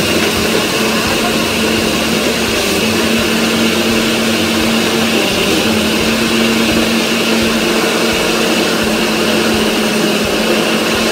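Countertop electric blender running steadily, blending avocado shake: a loud, even whir with a constant hum that holds the same pitch throughout.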